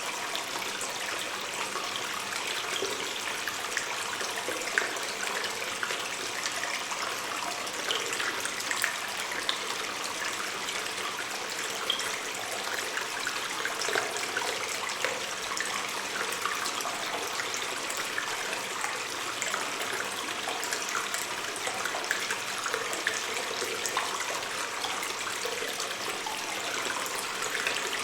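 Water stream running and trickling in a cave, a steady splashing hiss with small scattered drips and splashes.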